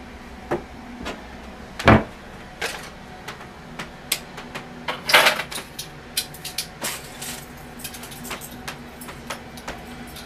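Assorted handling knocks and clicks over a steady low hum, with a louder thump about two seconds in and a short scraping burst about five seconds in.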